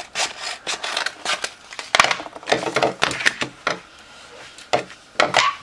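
Scissors cutting through a sheet of adhesive stencil vinyl: a quick run of irregular snips and crackles of the plastic film, followed by a few sharper handling clicks near the end.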